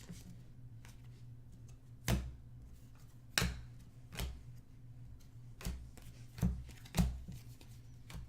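Basketball trading cards being handled and set down on a table: about six separate taps and slides in eight seconds, over a steady low hum.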